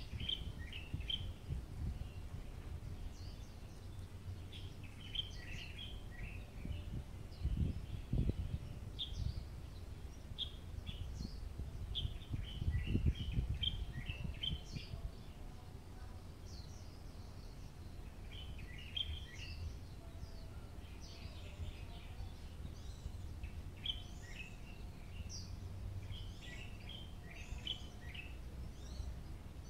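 Small birds chirping in short, scattered calls throughout, over a steady low rumble of outdoor background noise that swells briefly twice, about eight and thirteen seconds in.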